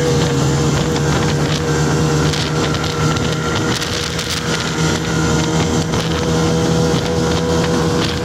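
Snowmobile engine running at a steady cruising speed under way, with wind noise on the microphone.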